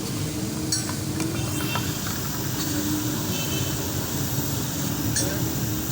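Steady low engine running noise with a hiss over it and a few light clicks and taps.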